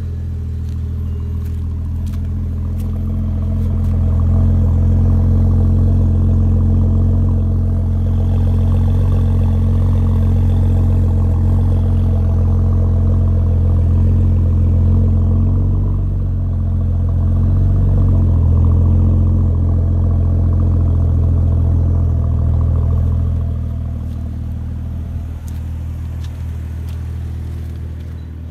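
Car engine idling with its muffler removed, a steady, loud low exhaust drone at the tailpipe. It grows louder about four seconds in, dips and swells slightly midway, and eases off near the end.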